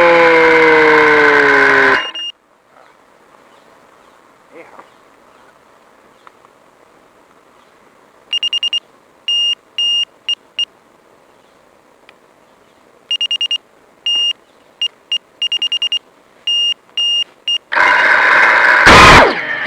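The brushless motors of a Qwinout F4-X1 FPV racing quad whine and wind down in pitch, then cut off about two seconds in. Later comes a long run of short high electronic beeps in uneven groups. Loud motor sound starts again near the end.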